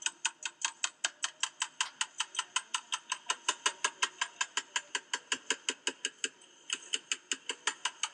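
Ratchet of a flatliner dent-pulling arm clicking steadily, about six clicks a second, with a brief pause about six seconds in, as the dent in the panel is slowly pulled out.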